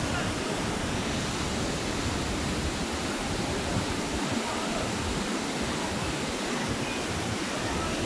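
Tall waterfall pouring into its plunge pool: a steady rush of falling water, with faint voices in the background.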